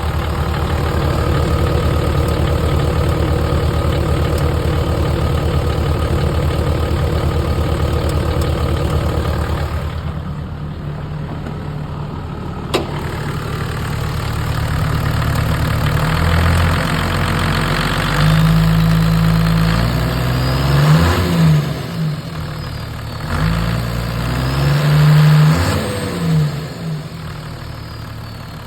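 Toyota Land Cruiser HDJ80's turbo-diesel straight-six running with a clicking noise. It idles steadily for about ten seconds, there is a single sharp click around the middle, then it is revved up and let back down a few times.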